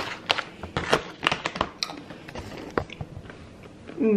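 Plastic snack pouch of cashews being handled: irregular sharp crinkles and clicks as the bag is shaken and nuts are picked out, thickest in the first two seconds and sparser after. A brief hummed voice sound near the end.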